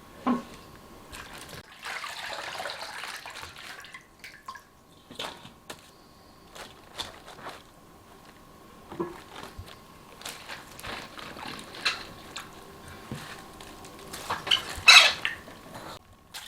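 Halved napa cabbages being dipped and turned in a basin of salt brine: water sloshing and dripping, with scattered light knocks and a louder burst of handling noise near the end.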